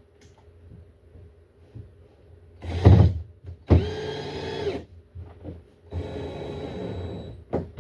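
Power drill running in two short bursts after a brief loud burst about three seconds in: a steady whine for about a second, then a quieter, longer run of about a second and a half near the end.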